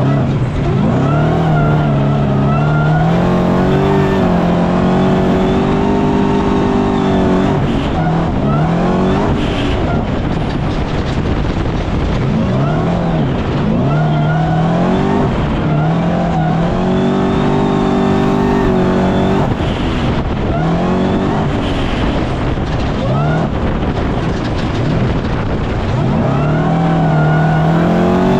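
Off-road race vehicle's engine under hard throttle, its pitch climbing in steps for several seconds, falling away briefly when the throttle comes off, then climbing again, three times over.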